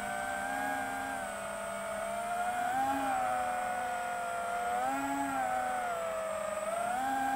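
FPV drone's brushless motors and propellers whining in flight. The pitch swells and falls back in repeated throttle punches, about every two seconds.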